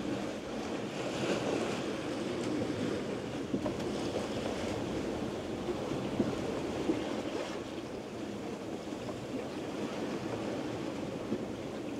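Wind and choppy sea water rushing past a sailing yacht under way, a steady rushing wash with wind buffeting the microphone.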